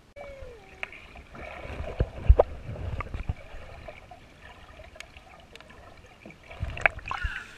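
Camera held underwater in a pool: muffled gurgling and sloshing, with heavy low thumps of water moving against the camera about two to three seconds in and again near the end.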